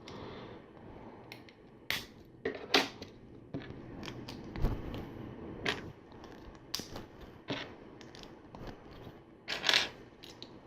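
Plastic LEGO bricks clicking and clattering as pieces are handled and pressed together: a string of short, sharp clicks at irregular intervals, the loudest near the end.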